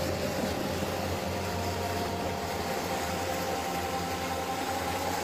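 Fast muddy floodwater rushing steadily past a half-submerged car: a continuous, even wash of water noise with a faint steady hum underneath.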